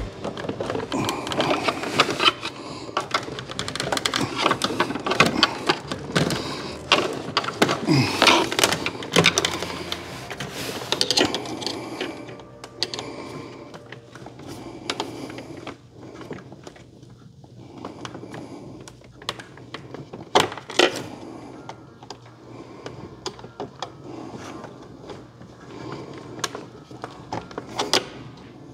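Hand tools on car parts: irregular clicking and knocking, dense for roughly the first twelve seconds, then sparser single clicks.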